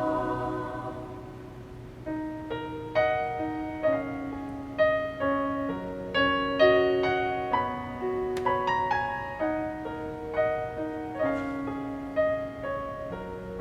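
A held choir chord fades away over the first couple of seconds. Then a solo piano plays a slow passage of single notes and chords, each note struck and left to ring.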